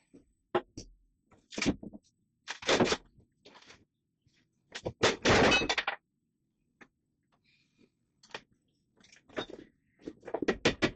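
Rotten wood being pried and broken out of a boat's flybridge: separate thunks and cracks, with a longer splintering crack about five seconds in and a quick run of knocks near the end.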